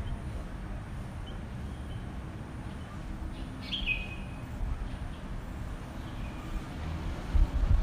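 Birds chirping at their nest in a few short, sparse calls, the clearest a quick falling chirp about four seconds in, over a steady low rumble. Louder low thumps near the end.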